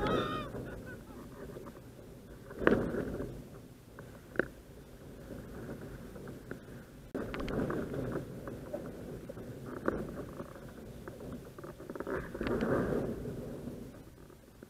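Water rushing and splashing under a planing windsurf board, with wind buffeting the mast-mounted action camera's microphone. The rushing swells several times, loudest about 3 s in and again around 8 and 12 to 13 s, with a couple of short knocks.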